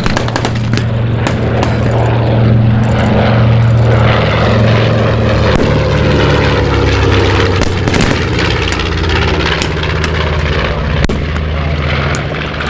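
Piston-engined propeller aircraft running steadily, a loud, even engine drone with propeller noise.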